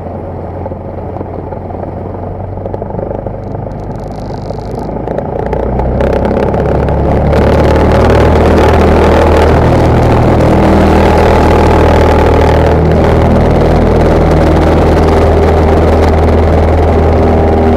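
Cessna 172's piston engine and propeller running. About five to seven seconds in, the engine is throttled up to full power for the takeoff roll and the sound rises, then holds loud and steady.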